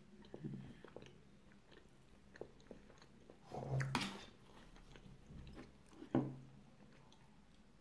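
A person biting and chewing bread spread with tomato and olive oil: small scattered mouth and bread sounds, with a louder cluster about four seconds in and a sharp one a couple of seconds later.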